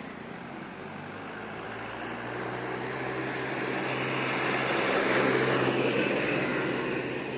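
A road vehicle passing on the street, its sound growing louder to a peak about five seconds in and then easing slightly, with a steady low hum under the noise.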